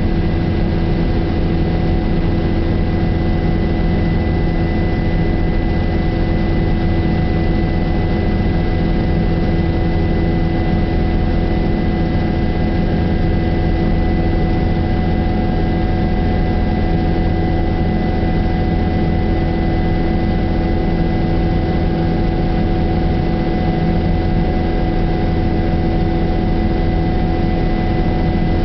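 Helicopter engine and rotor noise heard from inside the cabin: a steady drone with a thin high whine above it.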